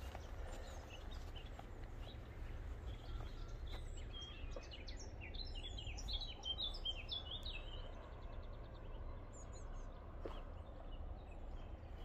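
A songbird sings a quick run of short, high chirping notes about four seconds in, lasting several seconds, over a steady low rumble of wind on the microphone.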